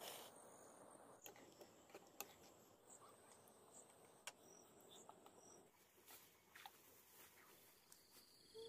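Near silence: a faint background with a few scattered small clicks.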